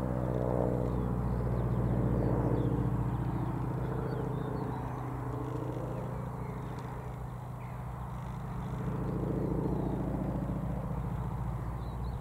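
Noorduyn AT-16 Harvard's Pratt & Whitney R-1340 Wasp nine-cylinder radial engine and propeller, flying a display. The engine note swells and fades and its pitch bends up and down as the aircraft turns. It is loudest about two seconds in and again near nine seconds.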